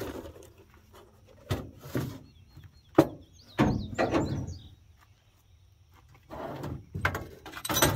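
Knocks and clatter of small objects being handled and set down on a service truck's bed, with one sharp knock about three seconds in the loudest. A bird chirps a few times in the middle.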